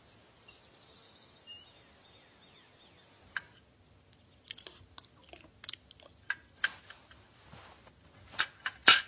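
A few short bird chirps, then a run of sharp clicks and scrapes of a spoon and dishes mixed with wet eating sounds as someone is spoon-fed; the loudest two clicks come near the end.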